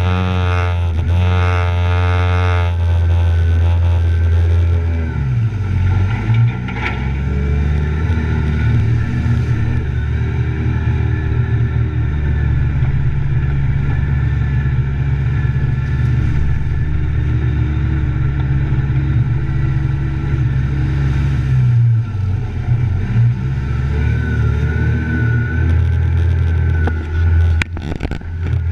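Side-by-side utility vehicle's engine running steadily under load as it drives through swamp water and mud, with water spraying up around it.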